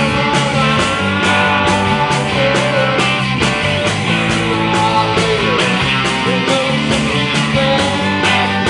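Live rock band playing: electric guitars and bass over a drum kit keeping a steady beat, with some guitar notes bending in pitch.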